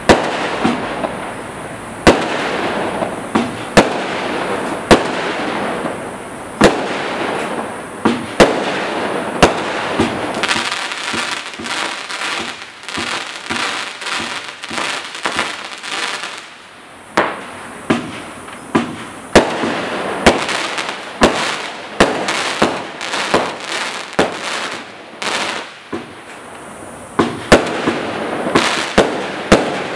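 Black Cat Thriller firework cake firing its sequence of shots: sharp bangs about one to two seconds apart, each trailed by crackling. About a third of the way in comes a dense run of rapid crackles, and the shots come quicker again near the end.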